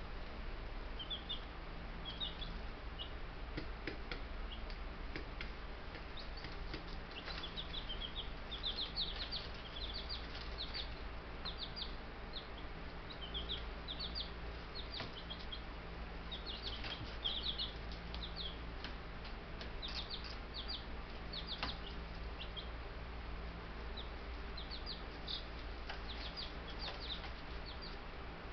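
Baby Buff Brahma chicks peeping: many short, high chirps in loose clusters, with a few faint clicks among them.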